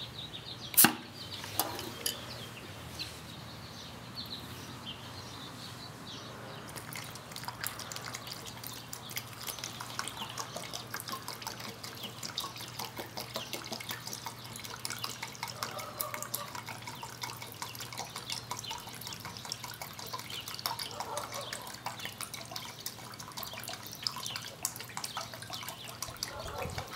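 Xylene pouring from a metal can into a plastic quart bucket of Plastidip, an irregular trickle with small splashes and drips that starts several seconds in. A single sharp click about a second in, as the can is opened.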